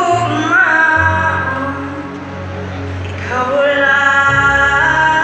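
Amplified live band playing on an outdoor stage, with a singer holding long notes that slide up into pitch over a steady bass line.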